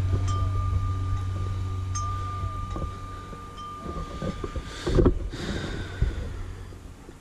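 Metal wind chime ringing, a few struck notes over one lingering tone that dies away about five seconds in, above a steady low hum. About five seconds in there is a loud thump and rustle as a dog dashes past close by.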